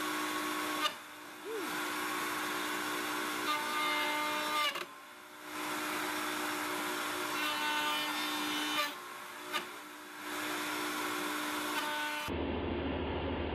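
Table-mounted router running with a rabbeting bit, cutting the edge of a wooden ring that is being fed in the wrong direction (a climb cut). Several sharp snaps come as the bit grabs the ring, each followed by a brief drop in the cutting sound. About a second before the end the sound turns slowed-down and duller.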